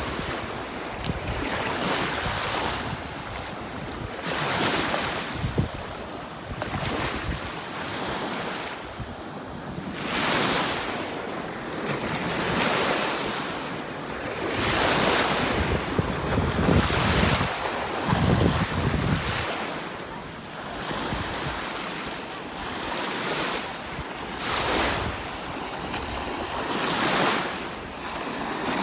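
Lake Huron waves breaking and washing onto the beach, the surf swelling and fading every two to three seconds, with wind buffeting the microphone.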